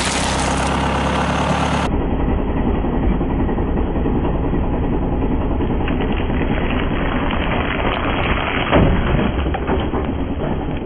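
Car engine running steadily at idle as the tyre creeps forward. A short crunch comes about nine seconds in as the tyre crushes a ball studded with candy-coated chocolates.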